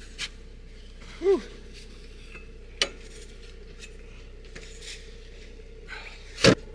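A few sharp knocks and clinks of gear or dishes being handled: three separate strikes, the loudest near the end, with a short pitched note about a second in, over a steady faint hum.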